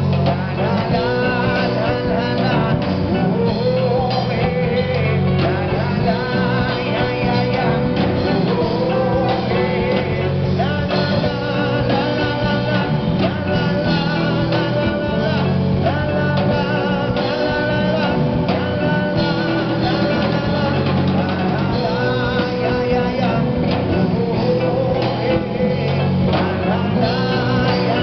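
Live rock band playing through amplifiers: electric guitar, five-string electric bass, drum kit and keyboard, with a singer's voice over the band.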